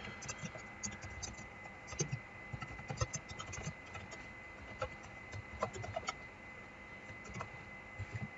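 Computer keyboard typing: faint, irregular key clicks as a line of code is entered.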